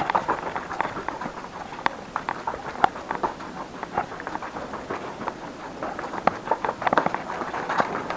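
Footsteps going down a flight of stairs, about two steps a second.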